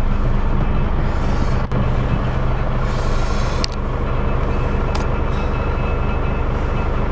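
Nissan Diesel heavy truck's diesel engine idling steadily, with three sharp clicks about one and a half, three and a half and five seconds in.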